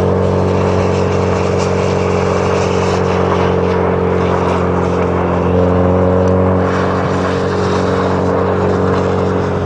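Honda Civic engine running at steady high revs under load while towing sleds across lake ice, its drone held almost constant with a slight lift in the middle, over a steady rush of wind and tyre noise.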